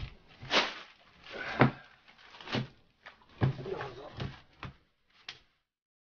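Household clutter being shifted and rummaged through by hand: a series of knocks and thumps, roughly one a second, with rustling in between, cutting off suddenly near the end.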